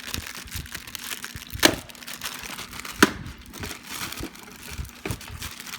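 Plastic packaging crinkling and rustling as a charging station is unwrapped by hand. There are two sharp knocks, about a second and a half in and again about three seconds in.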